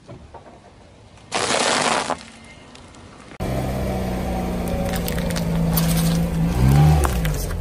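A car tyre crushing a foil-wrapped chocolate figure with a brief loud crackling crunch. After a cut, a car engine runs steadily as the wheel rolls onto a pineapple, bananas and dragon fruit, its note dipping and rising near the end as the wheel climbs over and squashes the fruit.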